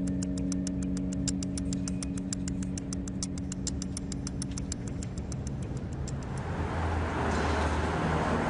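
Title-sequence sound design: steady ticking, about five ticks a second, over a sustained low drone. Both fade out after about six seconds and give way to a rising rushing swell near the end.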